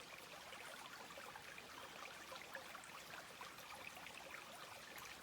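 Faint running water of a creek: a steady hiss flecked with small scattered ticks.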